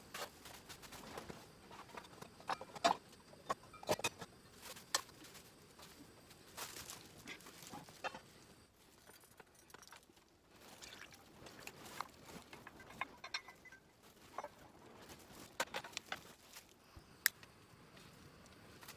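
Scattered light clicks and knocks at irregular intervals over a quiet background.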